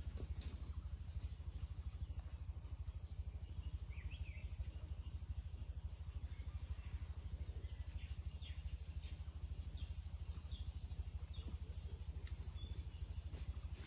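A steady high insect drone over a low, rapidly throbbing hum, with a few faint short bird chirps scattered through.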